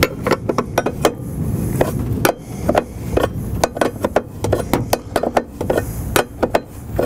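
Steel open-end wrenches clicking and clinking irregularly against each other and the fittings while A/C hose fittings on an accumulator are tightened with a backup wrench, over a steady low background rumble.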